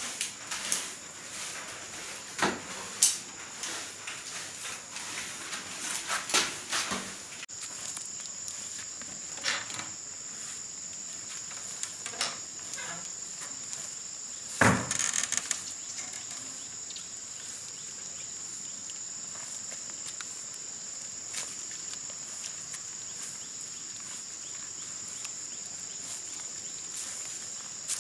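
Grass broom sweeping a concrete floor in scattered scratchy strokes, with one sharp knock about halfway through. A steady high insect chorus of crickets runs under it and grows louder after about seven seconds.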